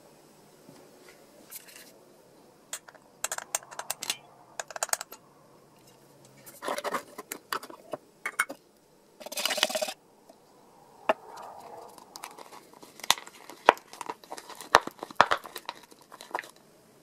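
Clicks, knocks and crinkles of hands working at a bench: a thin plastic cup and a paint tin are handled and the tin's lid comes off, and near the end a screwdriver taps and scrapes inside the plastic cup as it stirs, in a quick run of clicks.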